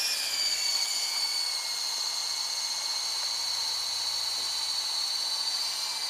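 Electric radio-controlled helicopter running, its motor and rotors giving a steady high-pitched whine that dips slightly in pitch in the first second or two and then holds level.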